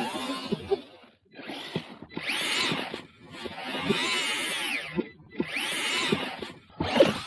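Losi LMT RC monster truck's brushless electric motor and drivetrain whining in a run of throttle bursts, the pitch rising and falling with each burst, with short pauses between them as the truck churns through snow.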